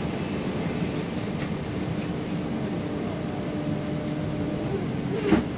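Steady drone inside a city bus, the engine and ventilation running with a low hum, with one sharp knock about five seconds in.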